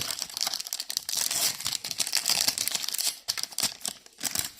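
Foil booster pack wrapper crinkling and tearing as it is opened by hand: dense, continuous crackling that stops shortly before the end.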